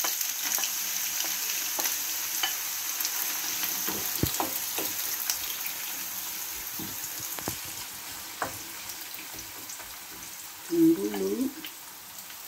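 Chopped onions sizzling in hot oil in a frying pan, the hiss slowly fading. A wooden spoon stirs them, clicking against the pan now and then.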